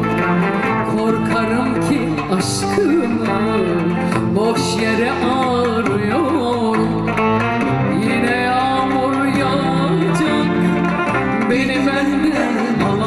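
A woman singing live into a microphone with a small band of guitar and violin backing her.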